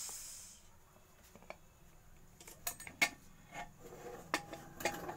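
Steam hissing out of a wrought-aluminium pressure cooker's vent as its weight is pressed to release the pressure, fading out within the first second. After that come scattered sharp metallic clinks and knocks from the cooker's weight and lid being handled.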